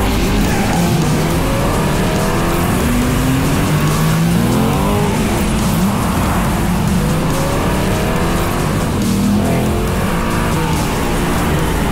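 Chevrolet C8 Corvette Stingray's 6.2-litre V8 revving under hard acceleration, its pitch climbing and falling again several times as it runs up through the gears.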